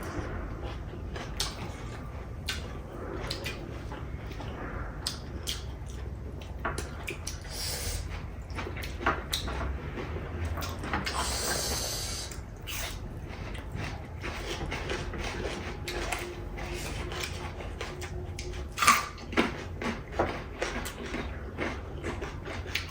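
Eating sounds of people eating chicken biryani by hand: chewing and mouth clicks with scattered small knocks, and a brief rustle about eleven seconds in.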